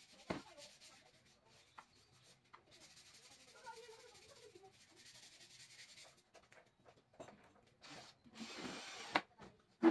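A Makita cordless drill set down on a plywood table with a sharp knock, then hands rubbing and shifting a wooden strip across the board. Near the end the drill runs briefly into the wood.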